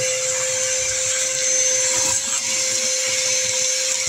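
Vacuum cleaner running steadily with a constant whine, its hose nozzle sucking dirt and weed debris off a truck's floor mat.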